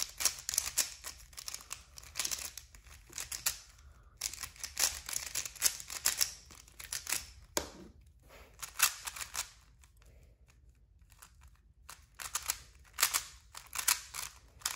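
Plastic 3x3 speed cubes being turned quickly by hand: bursts of rapid clicking and scraping as the layers rotate, broken by short pauses about four seconds in and again from about ten to twelve seconds in.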